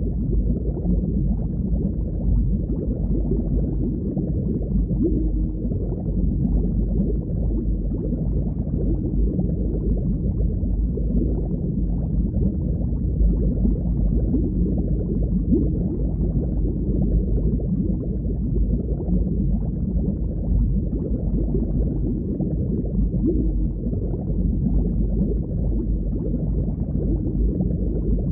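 Underwater ambience: a steady, deep, muffled wash of water noise with no high sounds.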